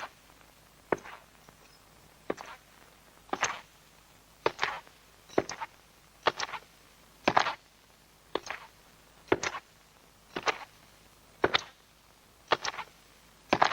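Slow, even footsteps, about one step a second, each a short sharp tap, some with a quick double strike.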